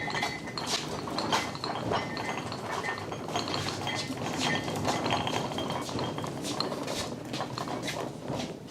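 Metal tools and parts clinking and clattering as shop items are shifted and shuffled about, with many small knocks.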